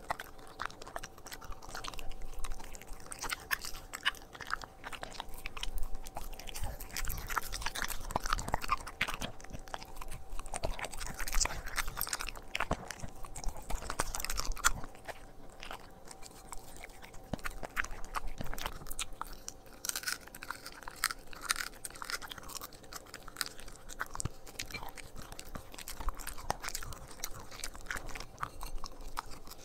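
A corgi chewing and crunching raw food, with irregular crunches and wet chewing. Near the end it bites pieces off a dried shark tail.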